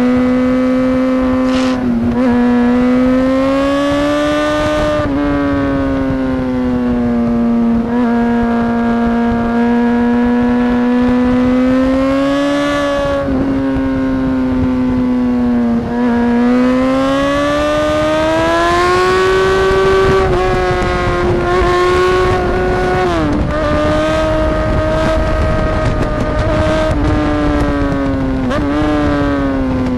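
Motorcycle engine at high revs, carried hard through a run of corners: its note rises and falls smoothly as the rider drives out of and backs off for each bend, with a few sudden drops in pitch, over steady wind rush on an onboard camera.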